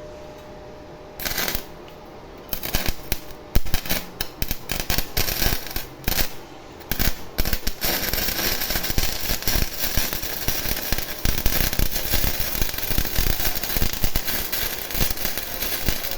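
MIG welding arc from a Daiden MIG welder crackling: a short burst about a second in, then stop-start crackles that settle into a continuous crackle from about eight seconds in. The welder is striking and holding an arc on test after its wire-feed motor's IC and capacitor were replaced.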